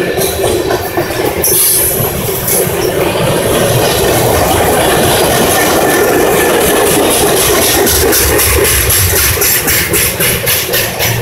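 Freight train cars rolling past at close range: a steady loud rumble and rattle of steel wheels on the rails, with a brief high wheel squeal about a second and a half in and a fast run of clicks near the end.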